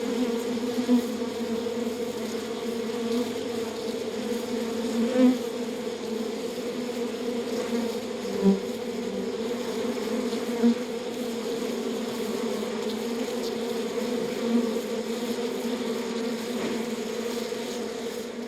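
Many bees buzzing together in a steady, droning hum, with single bees passing close and buzzing louder for a moment several times.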